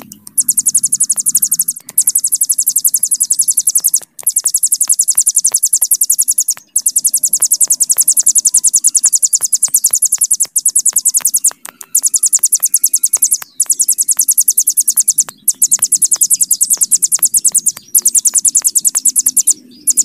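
Ciblek gunung (a prinia) singing its long 'bren' song: a very fast, high, buzzing trill in runs of about two seconds, each broken off by a short pause.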